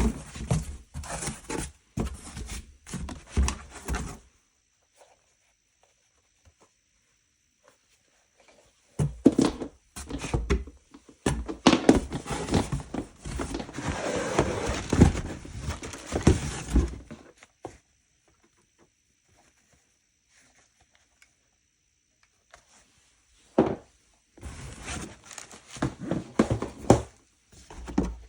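Handling noise from unboxing football boots: rustling of packaging with knocks and thuds, in three spells, the longest in the middle, with quiet pauses between.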